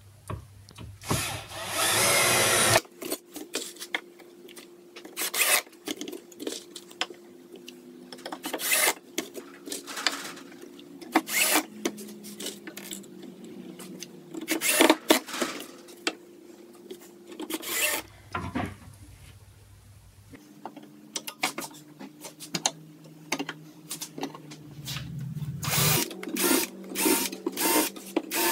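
Makita cordless drill-driver driving screws through metal coat hooks into an oak board: one longer run about a second in, then brief bursts, among many sharp clicks and knocks as the hooks and screws are handled and set down on the wood.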